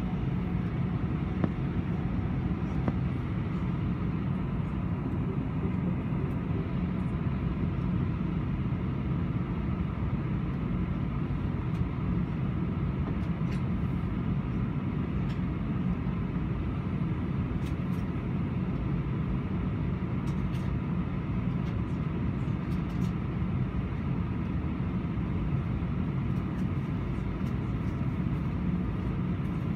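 Steady low cabin hum of an Airbus A318 parked at the stand with its engines not yet started: the air-conditioning airflow and onboard systems, with a few faint steady tones on top.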